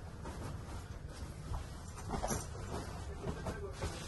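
Bedding rustling in short bursts as a duvet is spread and smoothed flat on a bed, over a steady low rumble.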